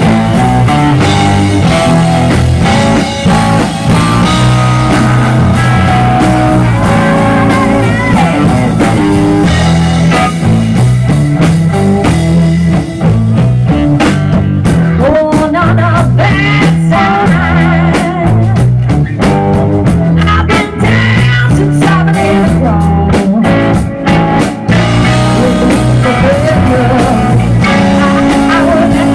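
Live band music from an electric guitar, electric bass and drum kit trio playing a blues-rock groove. A lead line wavers and bends over a moving bass line.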